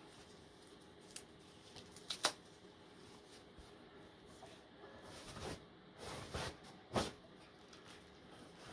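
Foam packing sheet being peeled and unwrapped from a telescope tube, rustling in short bursts with a few sharp ticks, the longest rustle a little past halfway.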